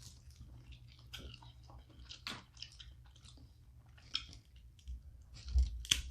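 Close-miked chewing and mouth sounds of someone eating seafood boil, with scattered soft clicks and crackles and a few louder ticks near the end.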